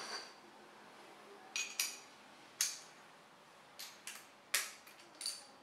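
Metal tools clinking and tapping as a ratchet with extension and hex socket works the fairing bolts: about nine sharp, irregular clicks, a few ringing briefly.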